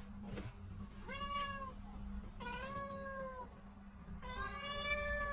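A domestic cat meowing three times, drawn-out calls about a second and a half apart, the last one the longest.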